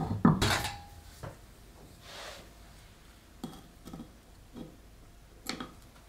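Bergs Potter ceramic plant pot on its ceramic saucer set down on a wooden table: a clunk and scrape in the first second with a brief ceramic ring. Then a few light clicks and taps.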